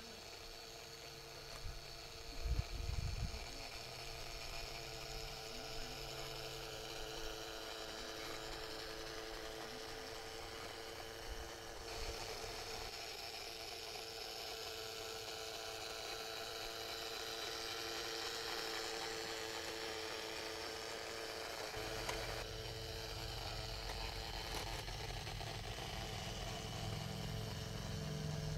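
Garden-scale model train running around its track, giving a steady mechanical hum that grows slightly louder near the end. A brief low thump comes a couple of seconds in.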